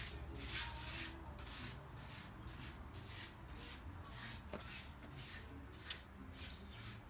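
Gloved hand scraping and scooping loose soil: a series of short, irregular rasping scrapes.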